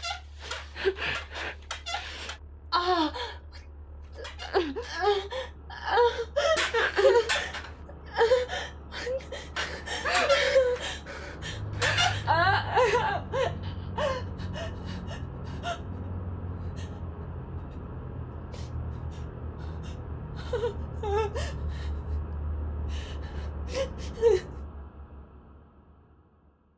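A woman sobbing and wailing in distress, with gasping breaths and broken, wavering cries that thin out after about halfway. A low steady drone swells underneath in the second half, and everything fades out near the end.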